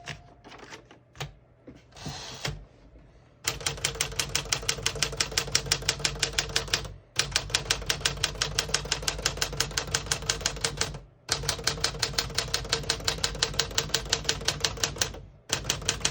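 1960 Smith-Corona Sterling manual portable typewriter being typed on: a few scattered clicks, then fast, even runs of keystrokes broken by three short pauses. Every key strikes cleanly, with none sticking or skipping.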